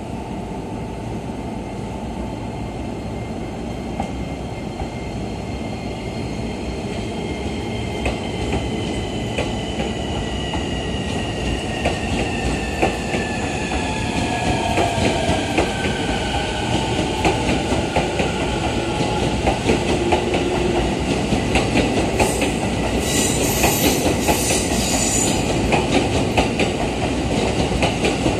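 JR East E231 series electric commuter train pulling out of a station: steady rolling noise that slowly grows louder, with an electric whine that falls in pitch through the middle, and wheel clicks over the rail joints that come more and more often in the second half.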